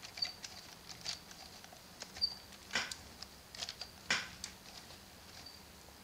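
Plastic steering mechanism of a 1996 LEGO Technic 8230 buggy squeaking faintly as it is turned back and forth by hand: a few short, high squeaks among soft clicks and scrapes of gears and axles. The steering does not move smoothly, which the owner thinks may be because the old set has sat unused.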